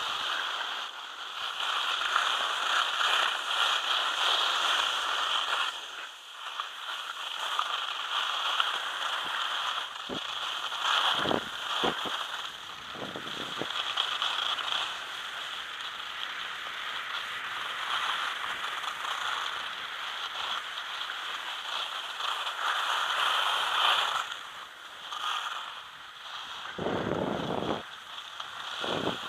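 Skis sliding and scraping over groomed, packed snow on a descent: a steady hiss that swells and fades with the turns, with a few brief low thumps around the middle and near the end.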